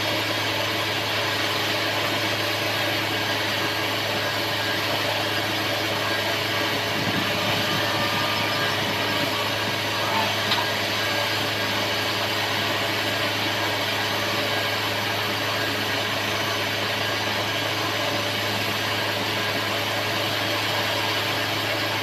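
Hyundai wheeled excavator's diesel engine running at steady revs while it digs, a constant low drone with no rise or fall in pitch.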